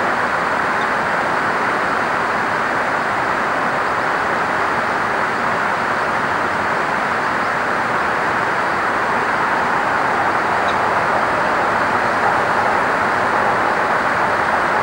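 Steady rushing noise, even throughout, with no clear bird calls standing out.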